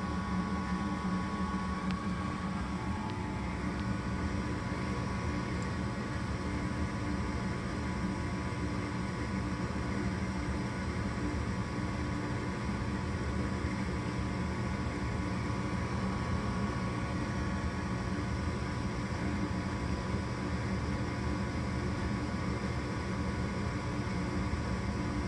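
A home furnace running steadily: an even rush of air with a low steady hum that does not change.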